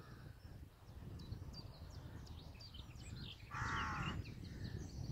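Wind rumbling on the microphone and small birds chirping, with one loud animal call lasting under a second about three and a half seconds in.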